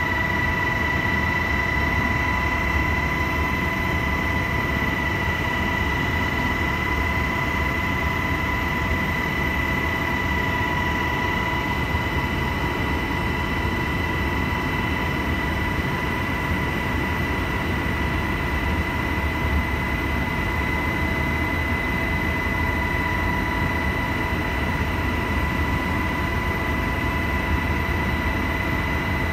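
UH-60 Black Hawk helicopter in flight, heard from inside the cabin: steady engine and rotor noise with a constant high whine.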